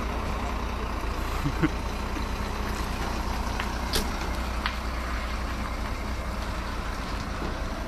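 Heavy vehicle engine running steadily with a low rumble, with a few light clicks or knocks over it.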